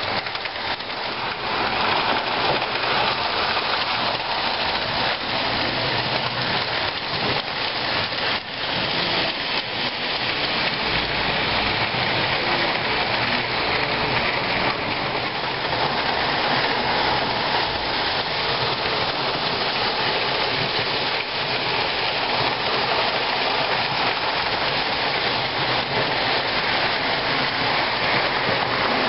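Several Lionel O-gauge toy trains running on three-rail tinplate track: a steady, even rattle of metal wheels rolling on the rails.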